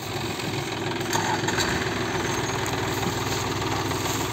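Diesel engines of two farm tractors, a New Holland and a John Deere, running steadily at low revs.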